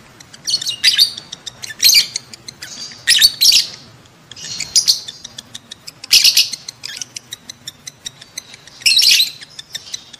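Lovebirds giving their breeding-season mating calls: short, shrill chattering bursts every second or two, with a rapid run of faint ticks between them.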